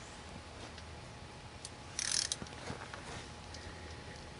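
Socket ratchet clicking in one short quick burst about two seconds in, with a few faint tool clicks around it.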